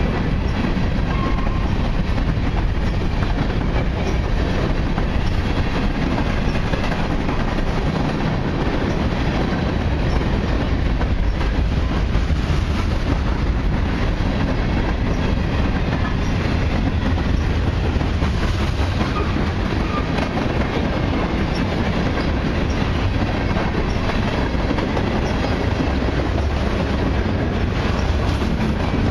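Freight train cars, autoracks and mixed freight, rolling past at speed: a steady rumble of steel wheels on rail with clickety-clack as the wheels cross rail joints.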